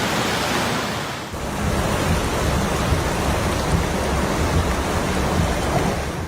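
Heavy rain pouring down in a steady hiss, with a deep low rumble underneath from about a second in.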